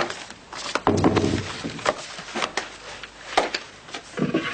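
Knocks and scrapes of a wooden chair and desk as someone sits down, with a low scrape about a second in and scattered sharp clicks.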